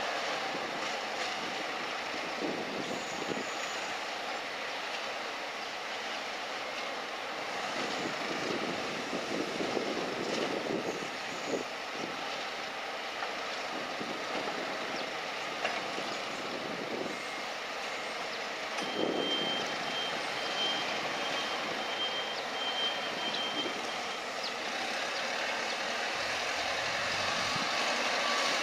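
Heavy cargo-handling machinery running, with scattered knocks, and a warning alarm beeping in a high, even series for about five seconds past the middle.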